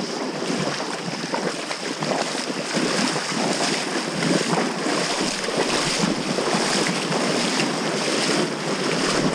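Fast-flowing mountain river rushing steadily over its stony bed.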